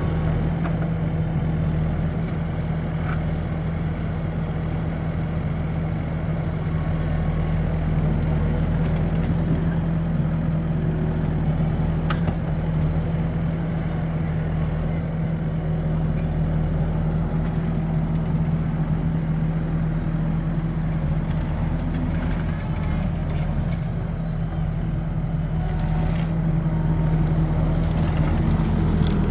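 Skid steer loader's engine running at a steady speed, a constant low drone with no change in pitch.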